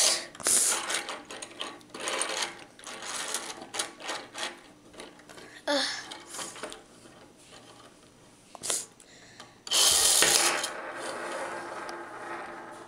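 Plastic Lego launcher gears and parts clicking and rattling as a spinning top is wound up, then a sudden loud clatter about ten seconds in as it is launched, followed by the top spinning on the table with a steady noise that slowly fades.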